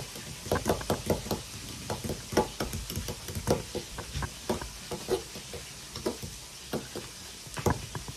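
A metal fork clinking and scraping against a ceramic mug as it mashes softened butter with garlic salt: irregular clicks and knocks, several a second.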